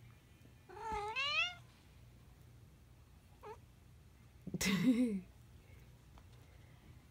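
Cat meowing: a rising meow about a second in, a faint short one a little past the middle, then the loudest, a lower, rougher wavering meow near the end.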